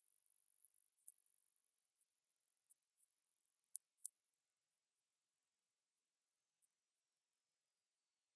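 Very high-pitched pure sine test tone from a hearing test, pulsing about once a second and stepping up in pitch every second or two, toward the upper limit of hearing that fades with age.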